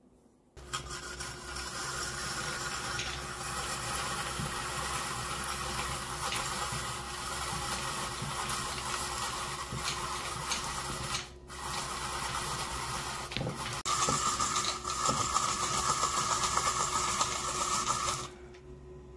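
Electric vegetable shredder motor running while it cuts zucchini into strands: it starts about half a second in, dips briefly around the middle, runs louder for the last few seconds, then stops just before the end.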